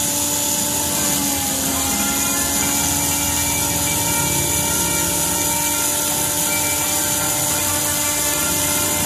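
Handheld rotary tool running steadily with a small disc bit fitted, a whine that holds one constant pitch.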